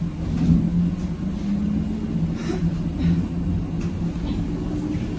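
Inside a ZiU-682G-016.02 trolleybus while it runs: a low rumble of the ride with a steady electric hum, and a couple of faint knocks.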